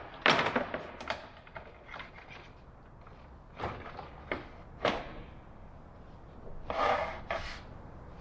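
Baltic birch plywood pieces being handled and set down: several sharp wooden knocks, then a short scraping slide about seven seconds in.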